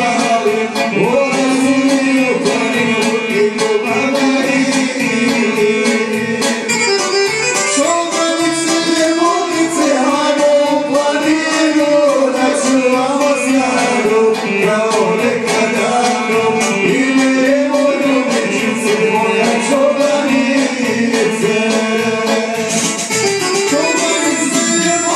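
Bosnian izvorna folk song: singing over string instruments with a steady, fast beat.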